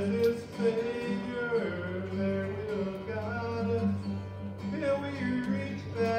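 Men's vocal group singing a gospel song to acoustic guitar accompaniment.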